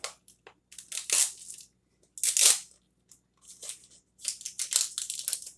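Plastic packaging of a Heinz Dip & Crunch snack pack crinkling and tearing in about five short bursts as it is pulled apart at its seam into two containers.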